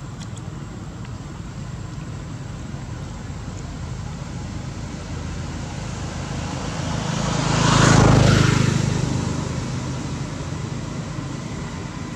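A motor vehicle passing by, its engine and road noise growing steadily louder to a peak about eight seconds in, then fading away.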